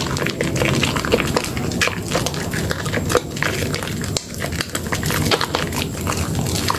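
A soaked Dermythol Green soap bar and thick lather being squeezed and kneaded between hands in a basin of foam: continuous wet squelching with many quick crackling pops of bubbles.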